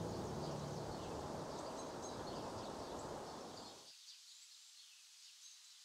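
Small birds chirping faintly and high-pitched in a woodland ambience. A low background hiss fades and cuts off abruptly about four seconds in, leaving only the chirps.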